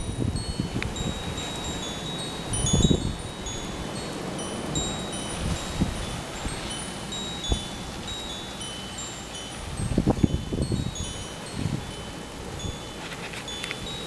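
Wind chimes tinkling: many short, high ringing notes at scattered moments, with gusts of wind buffeting the microphone about three seconds in and again about ten seconds in.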